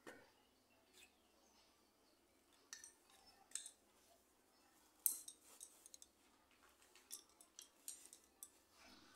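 Faint, scattered wooden clicks and taps from the sticks of a backstrap loom as the weaver shifts the heddle sticks and beats in the weft, the sharpest about five seconds in.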